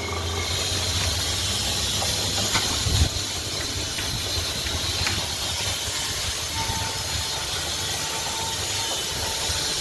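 Vacuum pump running steadily while evacuating a split air conditioner's copper refrigerant lines, a constant hiss over a low hum, with a few faint clicks.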